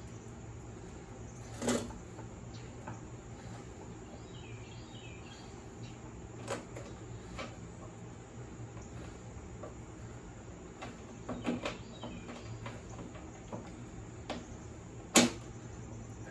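Scattered metal clicks and knocks of hand tools and bolts while a mower deck's belt cover is being bolted back on, four or five separate knocks with the loudest near the end. Faint chirping in the background between them.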